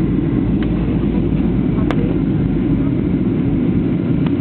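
Steady low rumble of an airliner's engines and rushing air, heard from inside the passenger cabin during the approach to landing.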